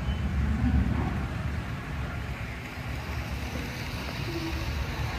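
Steady low rumble with faint voices in the background.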